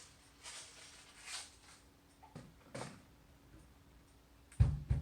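A cat's short, faint meow about halfway through, with some breathy noise before it, then a loud low thump near the end.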